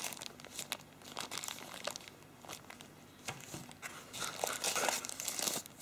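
Thin translucent wrapping around phone accessories crinkling as it is handled and unfolded, in scattered crackles that grow denser over the last second or two.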